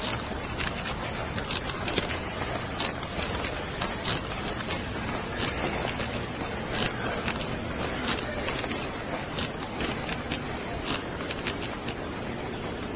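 Irregular scraping and rustling of clothing and gear against a chest-worn body camera, with footsteps, as the wearer walks, over a steady outdoor background hiss.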